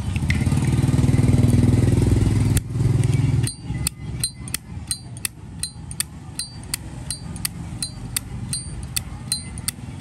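An engine running close by, loud and low, cutting off abruptly about three and a half seconds in. After it comes a steady run of sharp, lightly ringing ticks, about three a second.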